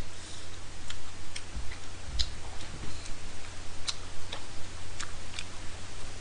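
Wet mouth clicks and smacks of someone chewing, irregular sharp clicks about once or twice a second, over a steady low electrical hum.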